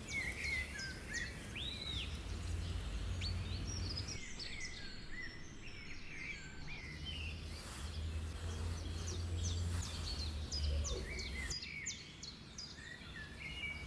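Small birds chirping and twittering: many short, quick calls overlapping throughout, over a low steady rumble.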